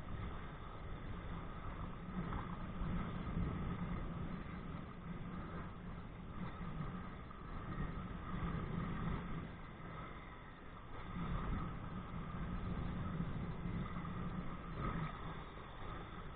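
Wind buffeting a body-worn camera's microphone: a steady low rumbling rush that swells and eases every second or two.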